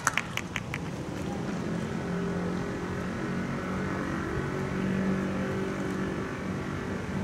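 A few claps right at the start, then an off-screen engine running steadily with a low drone and a few overtones, swelling a little around the middle.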